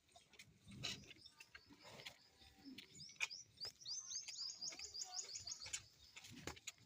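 A small bird singing a quick run of high, rapidly repeated notes in the middle stretch, getting faster toward the end. Short clicks and a couple of dull knocks come and go around it.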